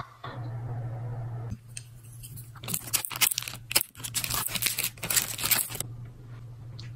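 Clear plastic wrapper of a packaged cream roll crinkling and tearing as it is pulled open, a dense run of loud crackles starting about a second and a half in and stopping shortly before the end.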